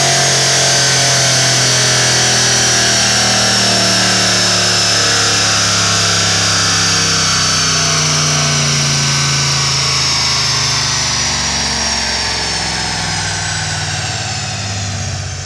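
Mercedes-Benz E55 AMG's supercharged V8 running on a chassis dyno, with a steady exhaust note and a high whine above it. Both fall slowly in pitch as the engine winds down, and it gets quieter near the end.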